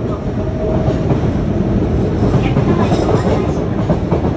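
Yokohama Municipal Subway Blue Line train running, heard at the gangway between two cars: a loud, steady rumble with frequent small knocks.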